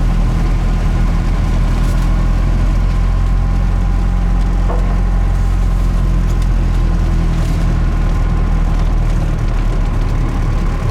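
Cummins 4BT four-cylinder turbo diesel in a Ford F-150 running steadily as the truck drives slowly along a dirt trail. A few faint scrapes sound over it.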